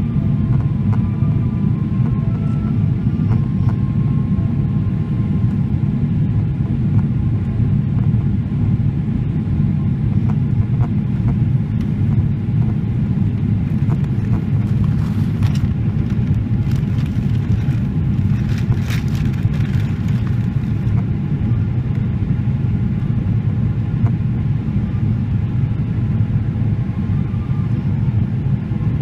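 Steady low rumble of a Boeing 777-300ER's GE90 engines and the airflow, heard inside the passenger cabin on approach.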